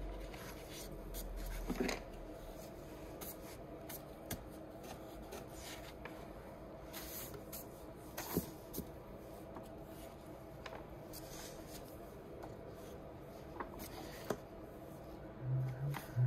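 Pages of a large old New English Dictionary volume being turned by a gloved hand: soft paper rustles and flips at irregular intervals over a faint steady hum, with a short low hum near the end.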